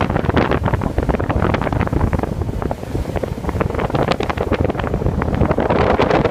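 Wind buffeting the microphone on a boat under way: loud and gusty, with the boat's running and water noise beneath it.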